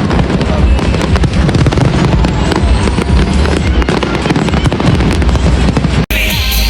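Fireworks bursting and crackling in rapid succession over loud music, with a thin rising whistle about two seconds in. Just before the end the sound cuts off abruptly and gives way to music alone.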